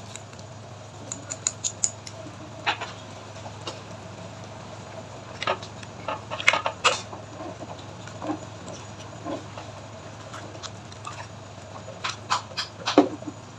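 A spoon tapping fried shallots off a small plastic bowl into a pot of soup, then a ladle stirring the soup and knocking against the stainless steel pot. The sound is a scatter of light clinks and taps, with a quick run of four early on and more clusters in the middle and near the end, over a steady low hum.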